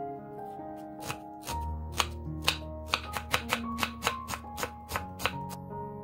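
Chef's knife chopping vegetables on a cutting board: a run of quick, uneven strikes, starting about a second in and stopping shortly before the end.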